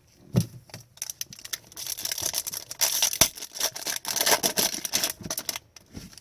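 Trading cards handled at close range: a dull knock, then a few seconds of rapid scratchy rustling and clicking as card stock slides over card stock.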